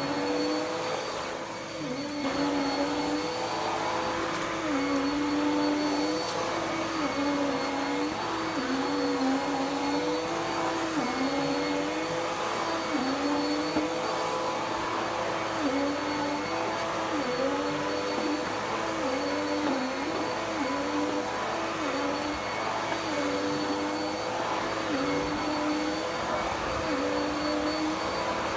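Dirt Devil Power Max Pet upright vacuum cleaner running on carpet: a steady motor hum and airflow hiss whose pitch dips briefly every second or two.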